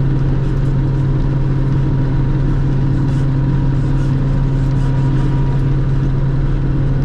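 Self-propelled forage harvester running steadily while chopping corn silage: a constant, even engine drone with no change in pitch.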